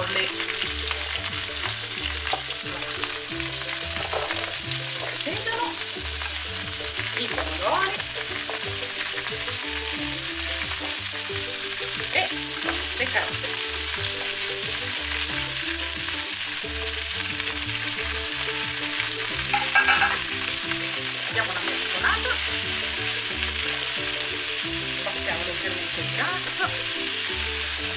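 Sliced fennel, celery, carrots and cherry tomatoes sizzling steadily in hot olive oil in a frying pan, with scattered light taps and clicks as pieces are dropped in and stirred with a spatula.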